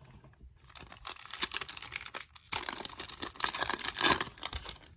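Foil trading-card pack wrapper being torn open and crinkled, in two stretches of crackling with a brief pause about halfway.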